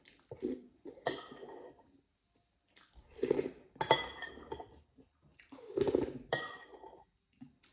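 Utensils clinking against dishes, about six separate clinks, each ringing briefly.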